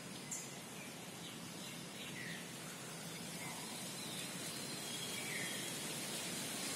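Steady outdoor background hiss with a few faint, short bird chirps scattered through it, and one sharp tick about a third of a second in.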